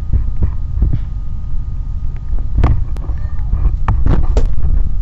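Loud rumbling noise on the microphone, with scattered knocks and clicks.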